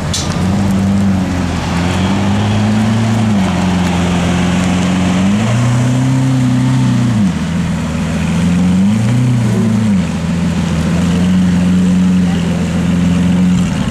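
Lamborghini Aventador's 6.5-litre V12 idling, its engine speed swelling up and settling back three times in slow, gentle rises.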